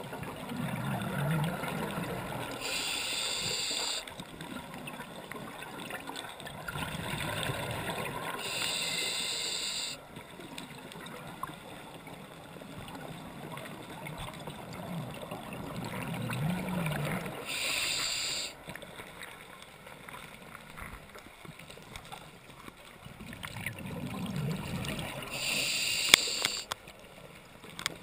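Scuba diver breathing through a regulator underwater: four breaths, each a low bubbling rush followed by a hiss, repeating about every eight seconds. A single sharp click comes near the end.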